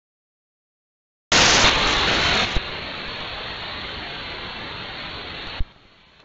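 Shortwave radio static from a web-based SDR receiver: an even hiss that starts about a second in, loud at first, then drops to a lower, duller hiss with a click. It cuts off with another click near the end.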